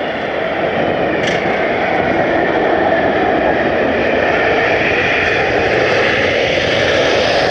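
Jet engines of a Boeing 777-300 airliner landing: a loud, steady rushing noise that swells slightly, with a brief sharp tick about a second in.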